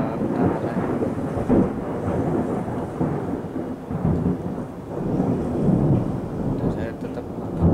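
Rolling thunder: a long low rumble that swells and fades in several waves, loudest near the end.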